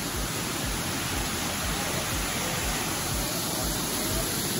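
Steady rush of a waterfall, an even wash of water noise.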